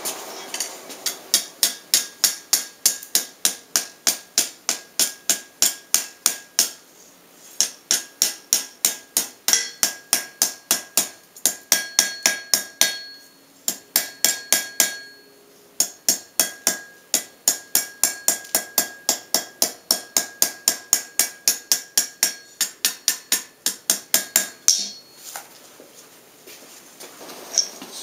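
Hand hammer striking a bar held on an anvil, in steady runs of about three blows a second, each leaving a short metallic ring, as the handle end of a bottle opener is forged. The hammering pauses twice briefly and thins to a few scattered blows near the end.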